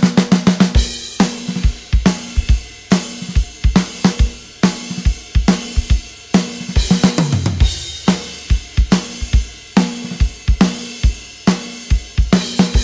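Background music: a drum-led instrumental track with kick, snare, hi-hat and cymbals keeping a steady beat. It opens with a fast run of drum hits, and a bass line slides down about seven seconds in.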